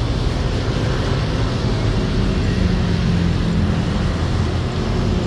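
Wind rumbling and buffeting on the microphone, with a steady low hum joining about two seconds in for a couple of seconds.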